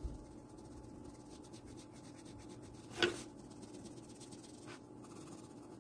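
Faint, rapid scratching of a Prismacolor colored pencil (Crimson Lake) shaded lightly over drawing paper to soften the color in. One brief, louder tick about three seconds in.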